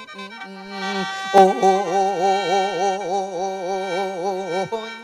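Mor lam singing: a voice holds one long wavering note with a wide, even vibrato from about a second and a half in until near the end. A sharp knock sounds just as the note begins.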